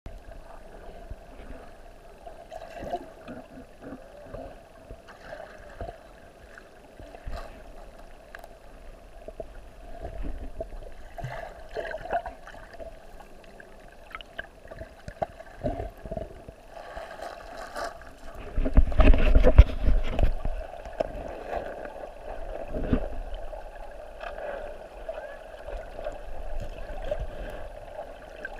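Muffled water sounds picked up by a GoPro in its waterproof housing just under the surface of a shallow river: sloshing and gurgling with scattered small knocks. A louder, low rumbling stretch comes about two-thirds of the way through.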